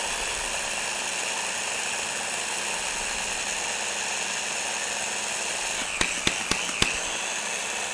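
Electric blender running steadily, chopping quartered onion into a mayonnaise-based sauce, with a few sharp knocks about six seconds in.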